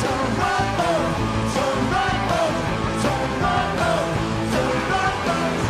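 Live rock band playing a driving rock song: electric guitars over bass and drums.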